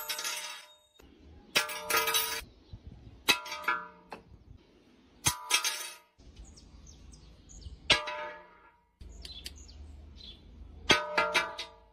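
Small metal tools dropped one at a time onto a glass tabletop. There are about six sharp clinks, some with a quick bounce, each ringing on briefly. The pane rings but does not break.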